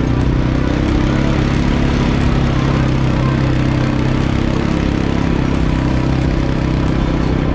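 ATV engine running at a steady speed during a ride, with an unchanging pitch throughout.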